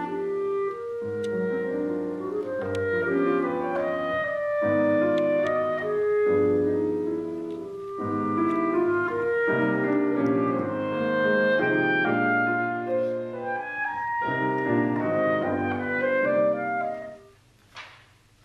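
Clarinet and grand piano playing a piece of music together. The music breaks off near the end, followed by a single short click.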